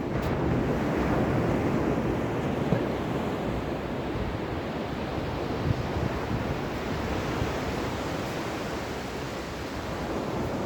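Ocean waves breaking and washing in: a surge of surf near the start that slowly ebbs away.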